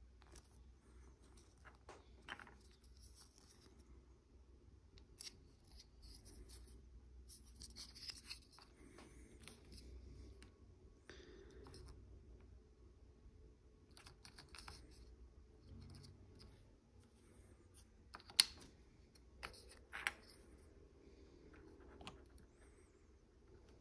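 Faint scraping, rustling and clicking of hard plastic model kit parts being handled and pressed together by hand, with one sharp click about three-quarters of the way through and two smaller ones soon after.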